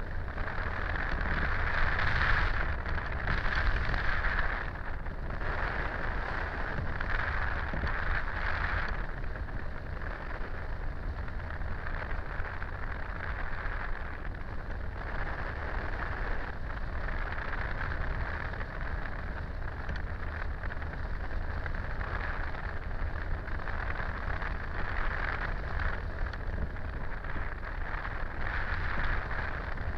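Rushing wind from the airflow of gliding flight buffeting a camera microphone mounted on a hang glider's frame, with a few louder gusty swells in the first several seconds.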